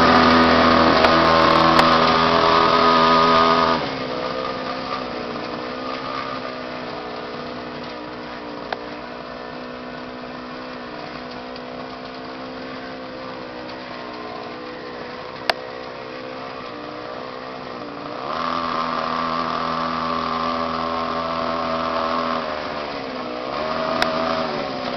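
A motorbike engine running steadily, loud for the first few seconds, then quieter, and loud again from about three quarters of the way in, with a brief dip and rise in engine pitch near the end.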